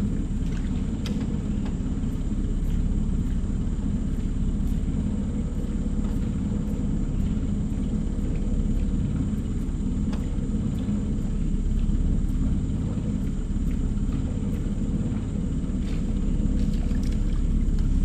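Electric trolling motor on an aluminium johnboat running steadily at low speed, giving a constant low hum and rumble.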